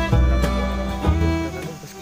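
Background music with a steady beat and a sustained melody over a heavy bass line.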